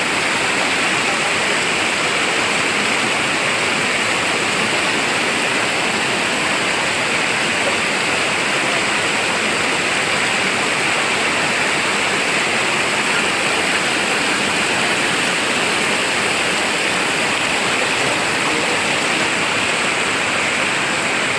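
Rushing river water, a steady, unbroken rush.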